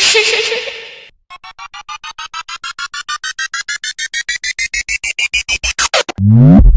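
Synthesized edit sound effects. A short noisy hit is followed by a rapid train of synth beeps that rise steadily in pitch and speed up over about five seconds, a build-up riser. It ends in a quick downward sweep into a loud, deep bass boom.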